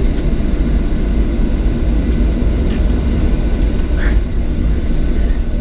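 Boeing 737-700's CFM56 jet engines running, a steady low rumble with a faint steady whine above it, heard inside the passenger cabin.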